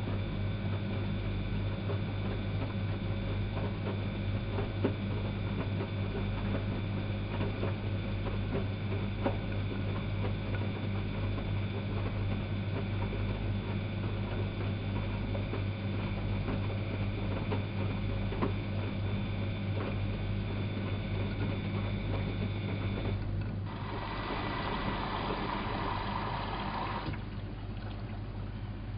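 Elin WM26AAA washing machine running: a steady low hum with water moving inside. About 24 seconds in, a rush of water lasts some three seconds, after which the hum drops away a little.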